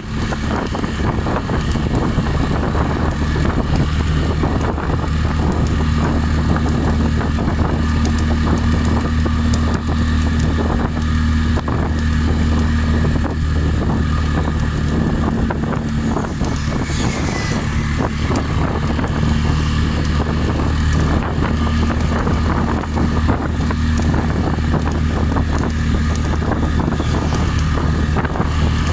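Steady drone of a moving vehicle's engine and road noise, with wind rushing over the microphone.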